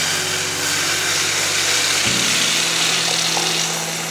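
Steaming hot liquid poured from a small stainless-steel pot into a cup, a steady splashing rush that fades near the end.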